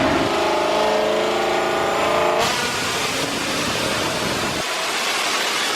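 Paxton-supercharged engine revving up through a dyno pull, its pitch climbing steadily. About two and a half seconds in it cuts off abruptly to a steady rushing noise.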